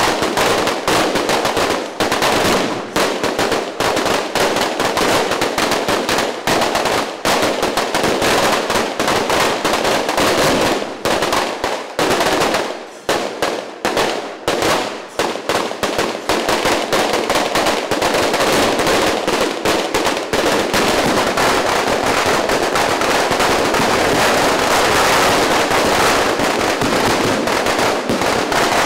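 A long, rapid barrage of firecrackers exploding at ground level, many bangs a second. The first half has short gaps between bursts, and about halfway through the bangs merge into one unbroken crackle.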